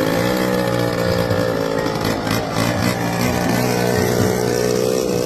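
A small engine or motor running steadily at high speed, its pitch rising a little at the start, then cutting off suddenly at the end.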